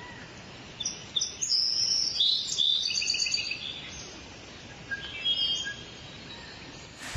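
Birds chirping: several quick series of short, high-pitched notes in the first half, and another short series about five seconds in, over a faint steady hiss of forest ambience.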